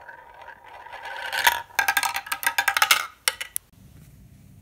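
A glass marble rolling around a plastic marble-run funnel with a steady ringing hum that grows louder, then clattering in quick sharp clicks as it drops through the plastic tubes and track. A few last separate clicks come just after.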